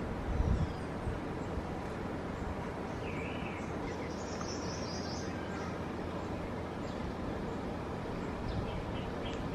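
Wind buffeting the microphone with a steady low rumble and a stronger gust about half a second in. Birds call over it: a looping call about three seconds in, a high chattering call a second later, and a few faint chirps near the end.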